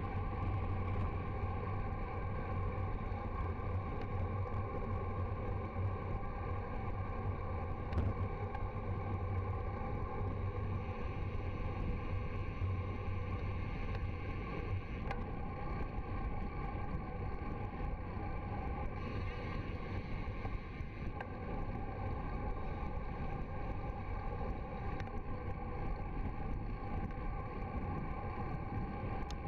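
Steady wind noise buffeting the microphone, with tyre and road noise, from a bicycle descending a mountain road at about 40–55 km/h.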